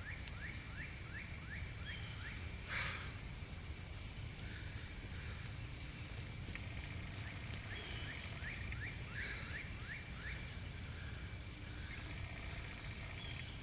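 A songbird repeating short rising whistled notes, several a second, in two runs, over a steady high insect drone and a low rumble.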